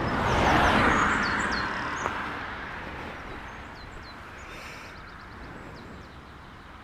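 A vehicle passing on the road, its tyre noise swelling in the first second and then fading away over the next few seconds. Small birds chirp throughout.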